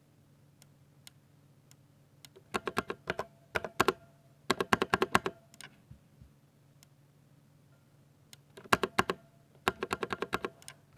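Typing on a Ducky 60% mechanical keyboard with silver switches: a few single keystrokes, then four bursts of rapid key presses with short pauses between them.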